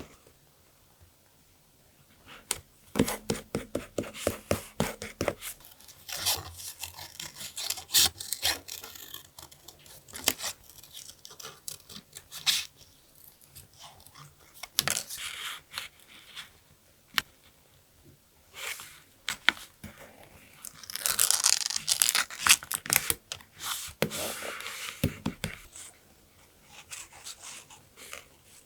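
Paper and journal materials being handled: a run of short rustles, taps and scrapes, with a denser stretch of rustling about three quarters of the way through.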